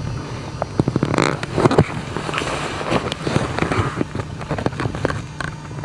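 Footsteps crunching through deep snow, irregular crunches and scrapes about every half second over a low steady rumble.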